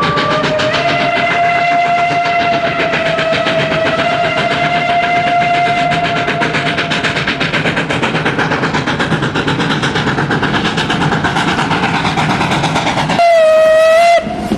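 Steam locomotive whistle blowing one long note that rises slightly in pitch at the start and holds for about seven seconds, over the fast rhythmic beat of the moving train. The beat continues, and near the end a second, louder whistle blast sounds for about a second.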